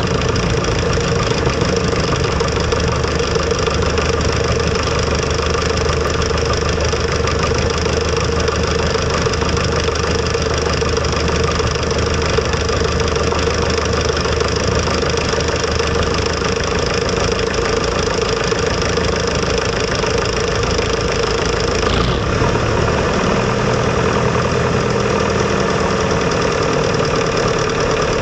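Light aircraft's propeller engine running steadily at low taxi power, heard from inside the cockpit as a loud continuous drone; its low hum shifts in pitch about 22 seconds in.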